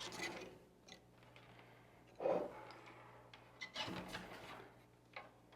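Faint, scattered handling noises: a bowstring being pulled through and rubbing around a compound bow's cam and limbs, with a few soft knocks.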